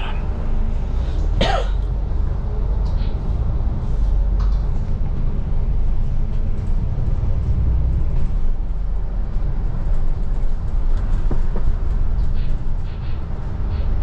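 Double-decker bus driving along, heard from inside on the upper deck: a steady low engine and road rumble. A short sharp noise comes about a second and a half in.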